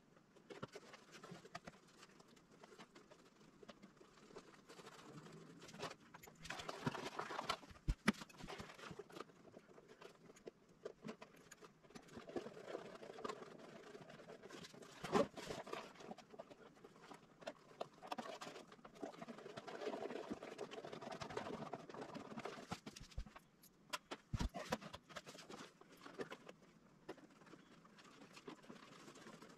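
Faint handling noises from fitting a bicycle frame bag: fabric rustling and small irregular clicks of the mounting hardware, with a few sharper knocks.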